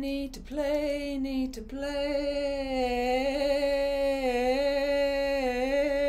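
A woman singing without words: two short notes, then one long held note with a slight waver in pitch.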